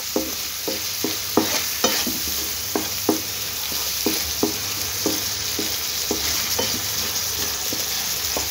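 Onions and sauce sizzling in a frying pan while a spatula stirs them. The spatula scrapes and knocks against the pan in an uneven rhythm of about two to three strokes a second.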